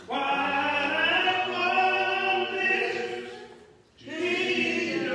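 Slow, unaccompanied hymn singing, led by a man on a microphone with other voices joining. The notes are drawn out long, with a short break just under four seconds in before the singing picks up again.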